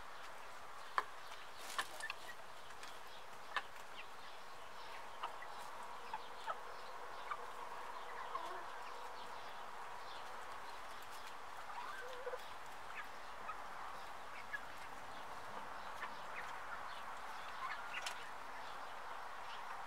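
A flock of chickens clucking softly while they peck at scattered grain on gravelly ground, with frequent sharp, irregular taps.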